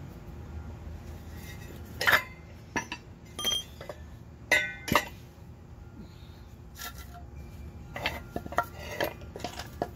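A steel belt pulley and a ratchet wrench clinking and clanking as they are handled, with several sharp metal knocks in the first half, a couple of which ring briefly. Lighter knocks follow near the end.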